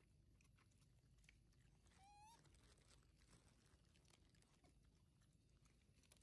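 Near silence with faint scattered ticks; about two seconds in, a young long-tailed macaque gives one short, faint coo that rises in pitch.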